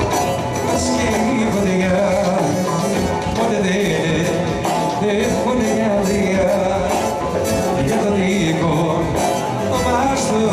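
Live Greek folk band playing dance music through a PA system, a violin carrying the melody over a steady beat, with singing.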